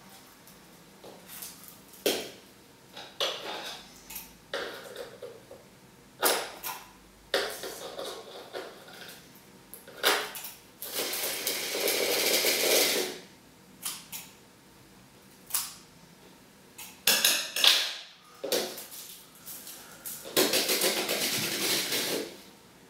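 Painting tools and containers being handled: a run of sharp irregular knocks and clinks, with two steady noisy stretches of about two seconds each.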